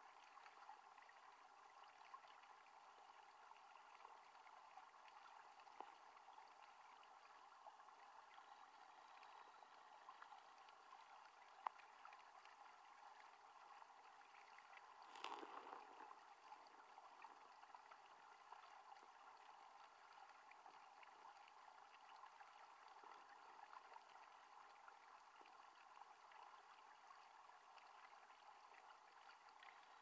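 Faint underwater rush of a mountain stream heard through a submerged camera, a steady hiss with fine crackling ticks. About halfway through it swells louder for a moment.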